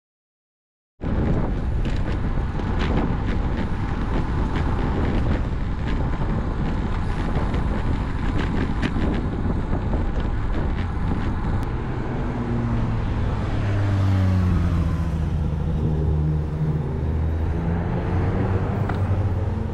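Riding on a road bike: wind rushing over the action camera's microphone with tyre and road rumble, starting about a second in, with a few sharp clicks in the first half. From about twelve seconds in, a motor vehicle's engine runs alongside, its pitch wavering.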